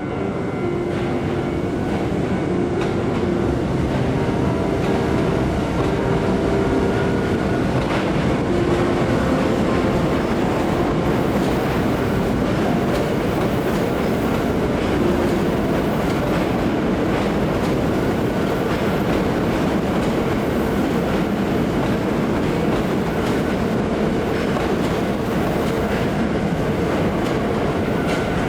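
Hankyu electric train running past over the tracks at a level crossing: a steady, loud rumble with the wheels clacking over the rail joints, and faint humming tones that step in pitch in the first several seconds.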